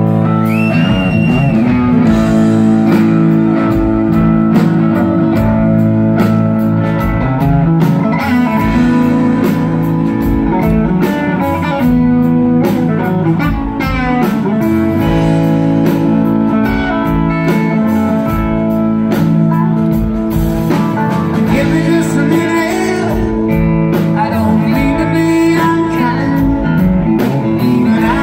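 Live southern rock band playing a song: electric guitars, including a Telecaster-style guitar, over a steady drum beat.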